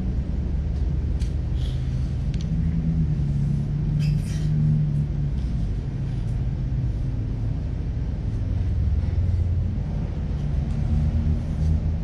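Steady low mechanical rumble with a droning hum.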